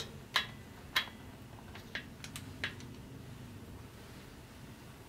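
Socket and torque wrench being handled on a diesel cylinder head's bolts: two sharp metallic clicks in the first second, then a few lighter ticks, over a faint steady low hum.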